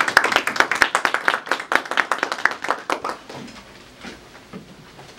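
A small audience applauding, dense for about three seconds and then dying away to a few scattered claps.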